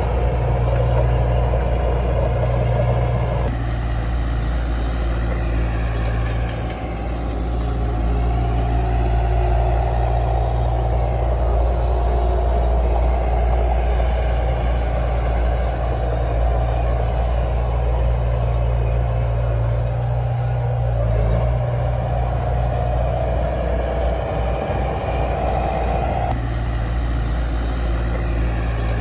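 Heavy diesel earthmoving machinery running steadily, its engine note shifting a few times as it works.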